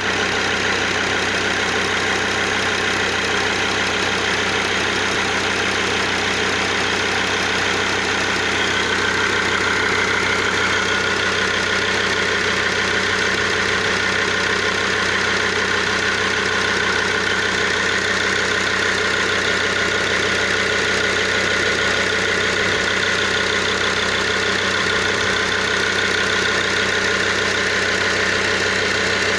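Mercedes-Benz 2.7 CDI inline five-cylinder common-rail diesel idling steadily, heard close up over the open engine bay.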